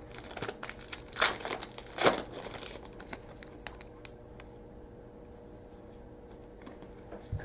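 Foil trading-card pack wrapper crinkling and tearing open, with two loud rips about one and two seconds in, then a few light clicks and rustles.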